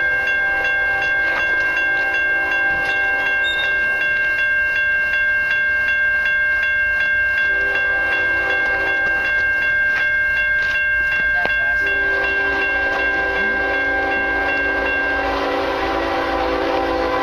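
Railroad crossing bell ringing steadily with rapid, even strikes while the gates come down, falling silent near the end once they are down. Under it, the approaching train's horn sounds in long blasts.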